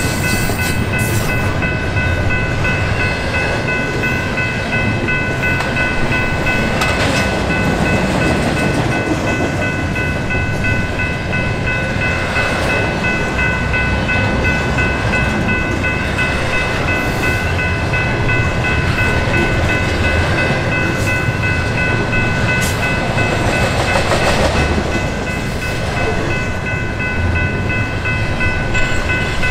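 Train rolling steadily past at close range, with a steady high-pitched whine held over the noise of the cars, and wind on the microphone.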